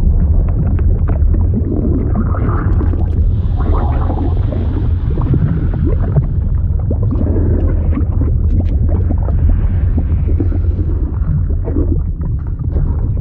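Fluid ambience sound effect: a steady deep rumble with many small clicks and pops scattered over it, like liquid moving and bubbling.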